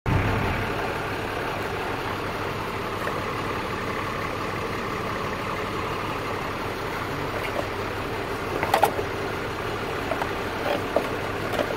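International DuraStar 4300's diesel engine idling steadily, heard from inside the cab. A few light clicks and taps come near the end.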